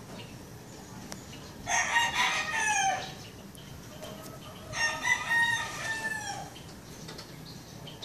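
Rooster crowing twice, each crow lasting over a second and dropping in pitch at its end.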